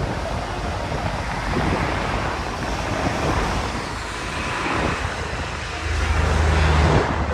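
Steady rushing noise, with a low rumble that grows louder about six seconds in.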